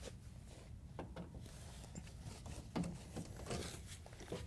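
Faint scattered clicks and scrapes of a Phillips screwdriver backing out the screws of a dishwasher's lower access panel, over a low steady hum.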